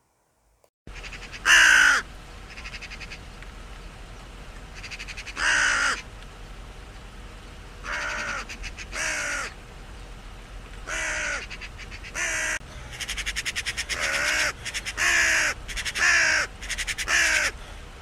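Raven croaking: a series of about ten harsh calls, each dropping a little in pitch, at uneven intervals, over a faint steady background hum.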